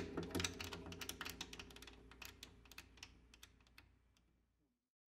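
Koto played with quick, irregular clicking strokes on the strings over low ringing strings, thinning out and fading away until the sound stops about four and a half seconds in.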